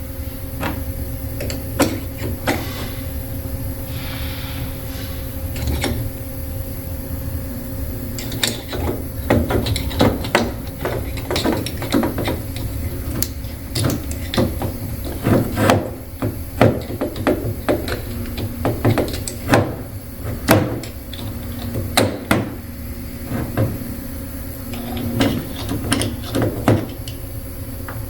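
Small flat-head screwdriver picking and prying the old packing out of an IOM I70 pump cylinder: irregular metal clicks, taps and scrapes, closer together in the second half, over a steady low hum.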